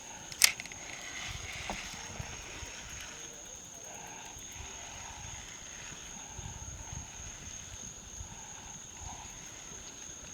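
Quiet open-air background with a steady high thin whine, low wind rumble on the microphone, and one sharp click about half a second in.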